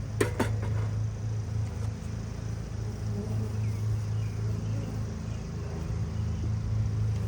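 Steady low hum of honeybees around the open hive, with two sharp knocks just after the start as a wooden frame is handled.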